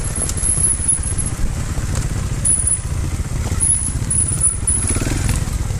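Montesa Cota 300RR trials bike's single-cylinder four-stroke engine running steadily at low revs with a fast, even low pulsing, as the bike picks its way over a rocky trail.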